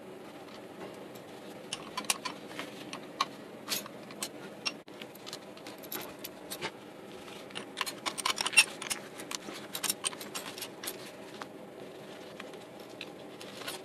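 Irregular metallic clicks and clinks of a wrench working the steel injector-line fittings on a KE-Jetronic fuel distributor as the lines are loosened and moved, in clusters with a denser flurry about eight seconds in. A steady low hum runs underneath.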